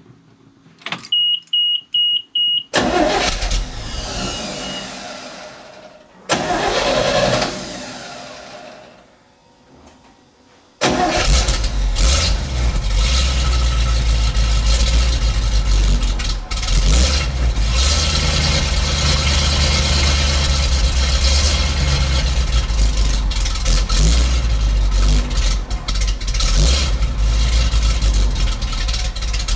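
A dash warning beeping rapidly, then the 1987 GMC 7000's 366 Chevy V8 starting: two short bursts that fade away before it catches about eleven seconds in and runs steadily. The exhaust from the twin tailpipes has a strong low rumble.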